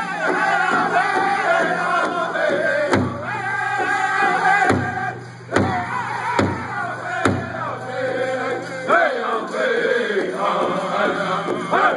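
Powwow drum group: a large rawhide-headed drum struck in unison by several drummers with padded beaters in a steady beat, under a group of singers chanting together. A few louder accented strokes come between about three and seven seconds in.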